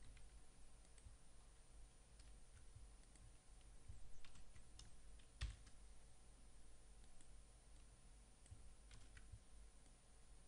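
Faint, irregular clicking of computer keyboard keys being typed, with one louder keystroke about halfway through.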